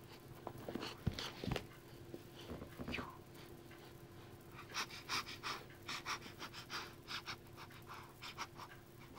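Newfoundland puppy panting close to the microphone: quick breaths about three a second through the second half, after a couple of soft knocks early on.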